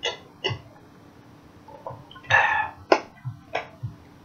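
A man drinking water from a bottle: two quick gulps at the start, then a half-second burp a little over two seconds in, followed by two sharp clicks.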